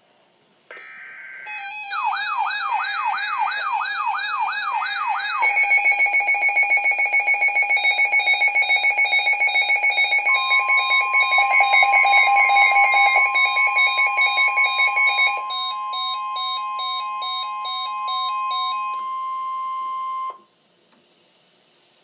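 Several NOAA weather alert radios going off at once for a warning, with overlapping electronic alarm beeps and a fast warbling tone at first, then pulsing beeps. About halfway through, the steady long NOAA Weather Radio warning alert tone joins in for about ten seconds, and all the alarms cut off together near the end.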